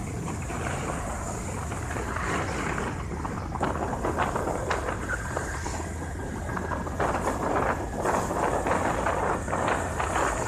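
A vehicle on the move: steady low engine and road noise, with uneven rushes of noise coming and going over it.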